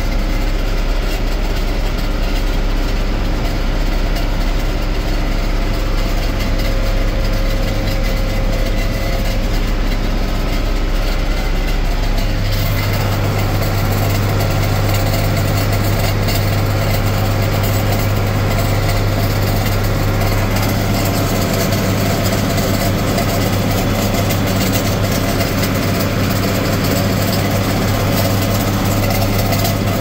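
John Deere 4255 tractor's six-cylinder diesel running steadily under load while pulling a PTO-driven John Deere 435 round baler that is picking up hay, heard from inside the cab. About twelve seconds in, the tone of the drone changes abruptly to a higher pitch.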